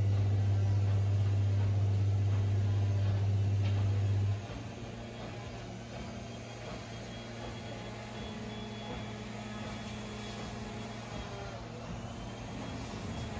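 Zanussi IZ161W washing machine at the end of its 1600 rpm spin: a loud, steady low hum cuts off suddenly about four seconds in, leaving a much quieter steady running sound as the spin ends.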